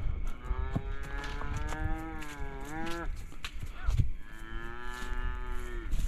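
Cattle mooing: two long moos, the first about three seconds long and rising in pitch as it ends, the second about two seconds long.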